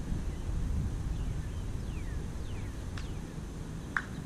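Low rumble of wind on the microphone, with a few faint descending bird calls and a single sharp knock near the end.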